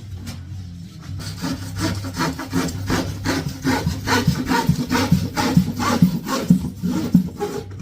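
Handsaw sawing with quick back-and-forth strokes, about three a second, starting about a second in.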